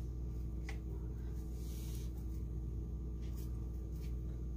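A steady low hum, with a few faint, soft taps as hands press and fold masa dough into a turnover.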